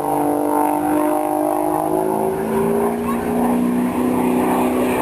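Engine and propeller of a single aerobatic plane during a display manoeuvre. The note falls over the first two or three seconds, then holds steady at a lower pitch.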